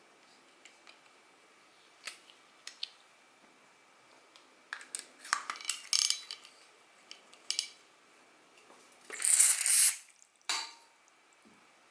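Light clicks and small metallic clinks of spinning-reel parts being handled, busier past the middle, with one louder, noisy burst about a second long near the end.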